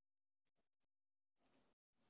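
Near silence, with a few faint ticks and one soft, brief clink of a metal keychain multi-tool against keys about one and a half seconds in.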